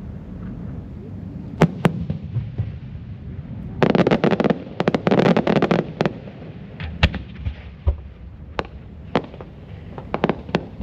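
Aerial firework shells from Komatsu Enka Kogyo bursting: a couple of single bangs, then a dense volley of rapid cracks for about two seconds, then scattered single bangs and a quick few near the end.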